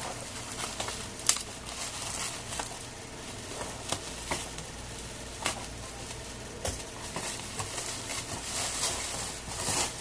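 Packaging wrap being handled and pulled off a boxed ring light: steady crinkly rustling with scattered sharp clicks and taps, the loudest about a second in.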